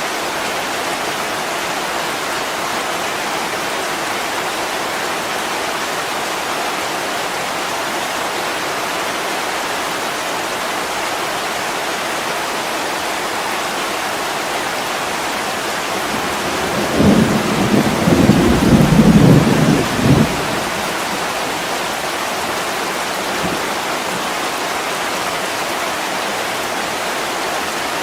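Heavy rain falling steadily on window glass, with a deep rumble of thunder for about three seconds a little past the middle.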